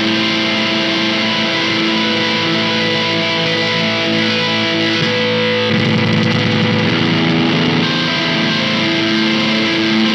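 Electric guitar played through the Intensive Care Audio Vena Cava Filter and Fideleater pedals together: sustained notes with effects, turning rougher and noisier for a couple of seconds about six seconds in.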